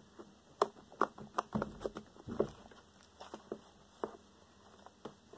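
Blue fluffy slime being squeezed and stretched by hand: irregular sticky clicks and smacks, coming thick and fast in the first half, then more scattered.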